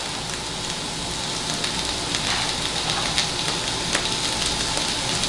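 Vegetables sizzling steadily in a hot nonstick skillet, with scattered small ticks and pops as handfuls of broccoli florets are dropped into the pan.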